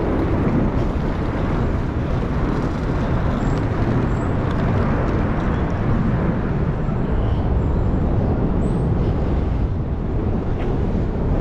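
Steady outdoor rumble of road traffic, vehicles running near the airport terminal's bus area.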